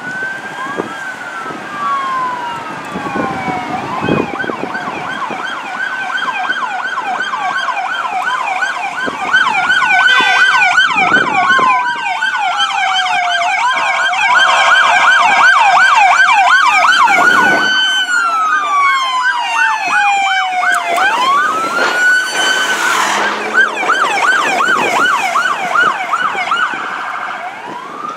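Several emergency-vehicle electronic sirens sounding at once, slow wails overlapping fast yelps. They grow louder as a line of police and fire marshal SUVs passes close by, then fade a little near the end.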